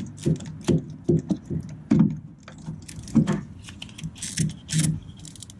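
Hand ratchet clicking and rattling in short, irregular spells as the last starter mounting bolt is worked loose.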